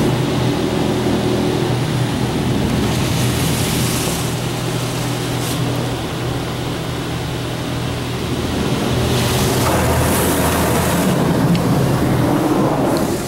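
High-pressure water jets of a LaserWash 4000 touchless car wash spraying onto the car, heard from inside the cabin, over a steady low hum. The spray grows louder as it sweeps over the car about three seconds in and again about three quarters of the way through.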